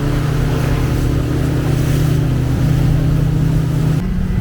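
Outboard motor of a small boat running steadily under way, a constant drone over the rush of water and wind on rough water; its pitch steps up slightly near the end.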